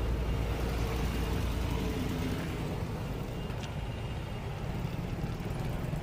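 Steady low outdoor background rumble, heaviest in the first two seconds and easing after.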